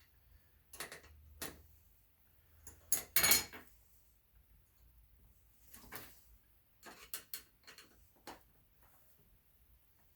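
Scattered metallic clinks and knocks of hand tools and bolt hardware on a wagon's metal frame during assembly. The loudest comes a little over three seconds in, with a quick cluster around seven seconds.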